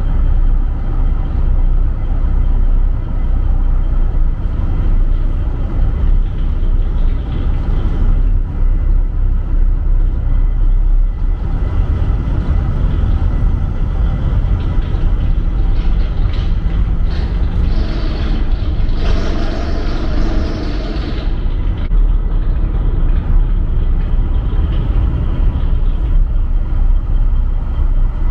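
Heavy engine running with a steady low rumble. About two-thirds of the way through, a hiss rises for a couple of seconds and then stops.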